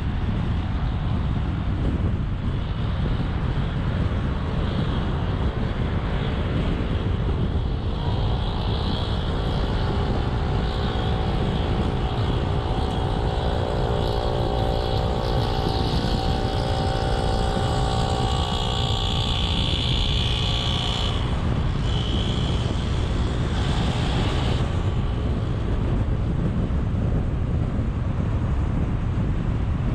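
A car driving at speed on an expressway: a steady road and wind rumble heard from the moving car. About a quarter of the way in, a pitched hum joins and holds through the middle, then fades out about two-thirds of the way through.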